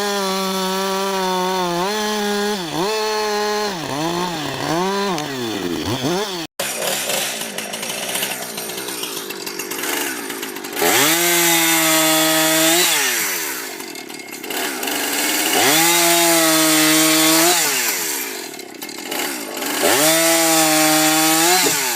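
Two-stroke chainsaw bucking a felled log into segments. The engine blips up and down several times, then three times revs up and holds high while the chain cuts through the wood, dropping back to a lower speed between cuts.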